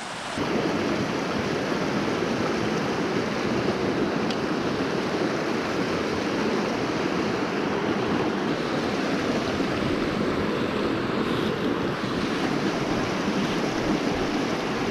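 Fast-flowing mountain creek rushing over rocks into pools: a steady, even rush of water.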